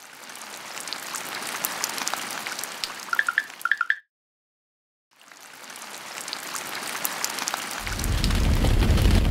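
ASMR sound effects: a fine crackling hiss with a few quick high chirps, then a second of silence. The hiss fades back in, and about 8 s in a loud, coarse scratching begins as a hairbrush's bristles are rubbed over a microphone's grille.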